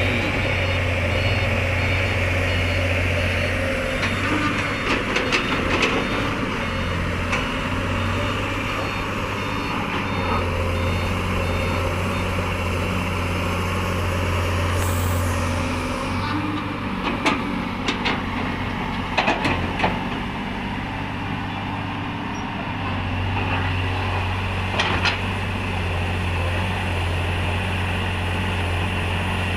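Heavy diesel engines of an excavator and dump trucks running steadily. A truck's reversing beeper sounds for roughly the first twelve seconds. Several sharp metallic knocks and a short hiss come partway through.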